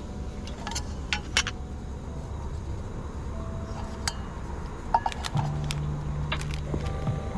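A titanium camping cup clinking and tapping as it is handled, set into a wooden cup and put down on a metal table: about half a dozen light, sharp metal clinks.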